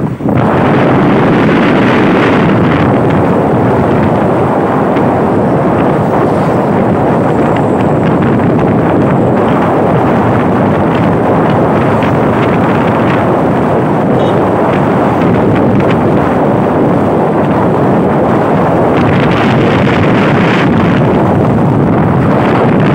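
Loud, steady wind rushing over the microphone of a moving motorbike, mixed with the ride's road and engine noise.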